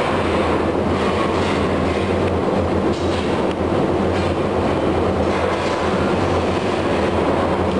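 Forge-shop machinery running: a steady, loud rumble over a low hum, with no distinct hammer blows standing out.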